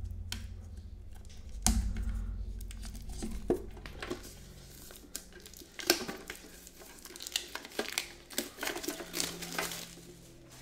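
Plastic shrink-wrap being torn and crinkled off a metal collector's card tin, with a few sharp knocks as the tin is handled.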